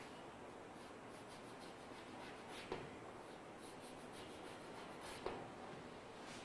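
Chalk scratching on a blackboard in short faint strokes while a drawing is sketched, with two sharper taps of chalk on the board about two and a half seconds apart.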